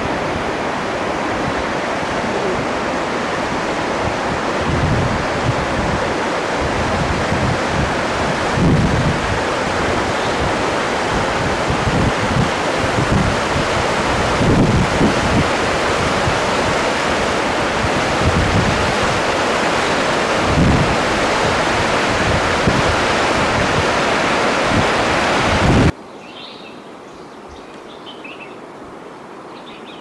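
Mountain river rushing over rocks and boulders: a loud, steady rush of water with occasional low surges. About 26 seconds in it cuts off suddenly to a much quieter background with faint high chirping.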